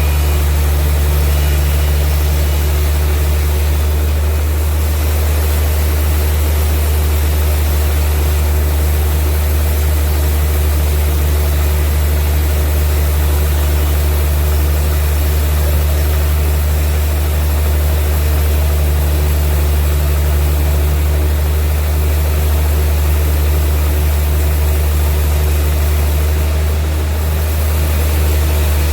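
Vintage sawmill machinery running with a steady, loud low drone.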